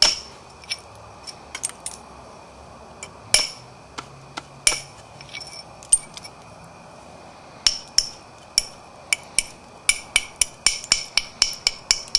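Sharp clicks of a knapping tool striking the edge of a silicified coral point as it is flaked. A few scattered, louder strikes come first, then a quick run of lighter taps, about three a second, over the last few seconds.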